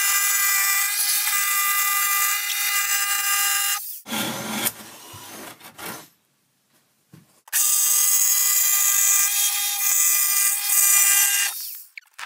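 Electric power tool running and cutting through a wooden closet wall panel, a steady high whine in two long runs of about four seconds each, with knocking and handling noise and a brief pause between them.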